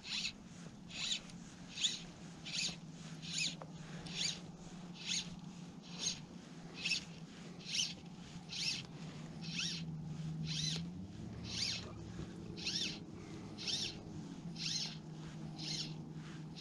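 Fly line being stripped in with short, even hand pulls: each pull a brief squeaky rasp of line sliding through the rod guides and over the finger, about one a second.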